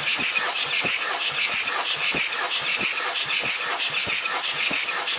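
Volkswagen 1.9 TDI (AVB) four-cylinder turbo diesel cranking over without starting during a compression test, a loud hiss with a rhythmic chugging of compression strokes. The third cylinder is building to 25 kg/cm² on the gauge.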